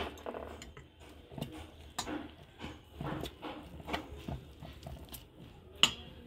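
A spoon stirring gram flour and a little water into pakora batter in a bowl: irregular soft scrapes and light clicks, with a sharp tap right at the start and another near the end.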